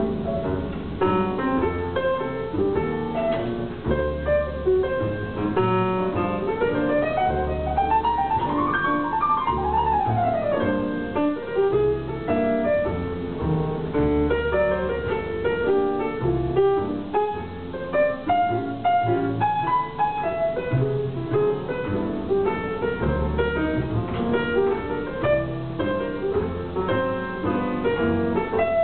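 Grand piano and upright double bass played live as a duo: piano chords and melody over a plucked bass line. About six seconds in, a piano run climbs for a few seconds and comes back down.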